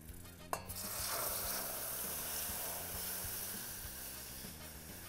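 Milk mixture poured into a hot roux of butter, flour, cocoa and starch in a steel saucepan, sizzling and hissing as it hits the pan. A single sharp clink comes just before. The sizzle swells about a second in and slowly dies down.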